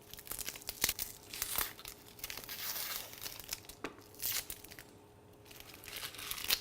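Dry, papery onion skin being peeled and torn off by hand: crinkling and crackling with a few sharp clicks, and a denser rustle around the middle.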